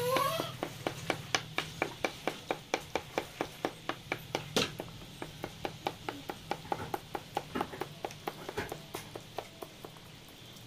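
A small wooden stick tapping quickly and evenly against the lip of a pot of sugar syrup, about four or five taps a second, to break the pouring stream into drops for batasha sugar-drop moulds. The taps slow, turn uneven and fade after about six seconds, and stop near the end.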